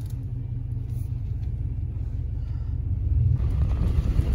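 Low, steady engine and road rumble heard from inside a moving truck's cab, getting louder and rougher about three seconds in.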